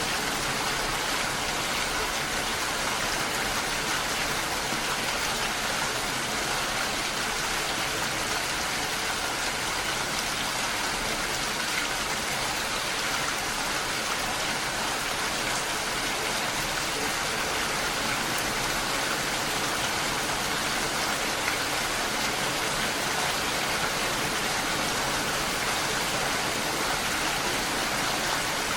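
Steady rain falling on a lake's surface: an even, unbroken hiss with no separate drops or pauses standing out.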